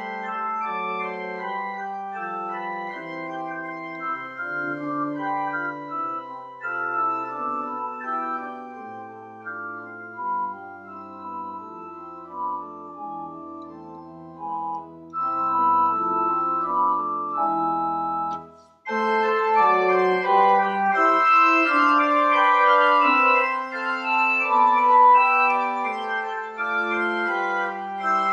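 Church organ playing several voices of held, overlapping notes. Just under twenty seconds in, the music breaks off for a moment and comes back louder and fuller, with more high notes.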